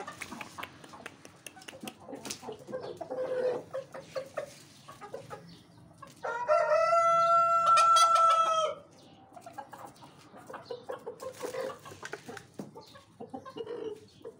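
Chickens clucking while they feed. Midway a rooster crows loudly, one long call of about two and a half seconds.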